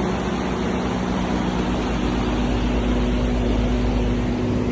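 Steady machine noise: a motor running evenly with a low, constant hum and a wash of noise over it.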